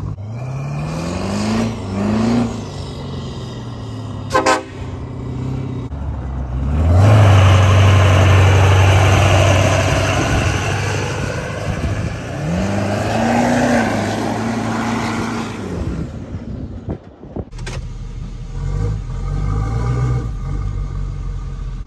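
Lifted diesel pickup trucks' engines revving and running, with rising pitch sweeps. Midway comes a long, loud, steady low tone.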